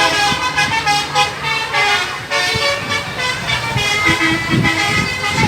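Bus 'telolet' horn, a multi-tone air horn, playing a quick tune of several notes at once that jump in pitch every fraction of a second.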